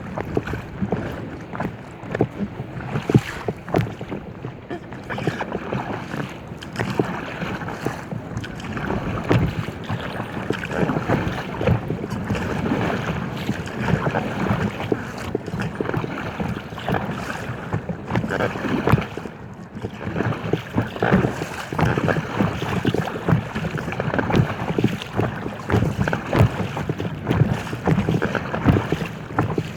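Water slapping and splashing irregularly against the hull of an inflatable kayak on wavy water, with wind buffeting the microphone.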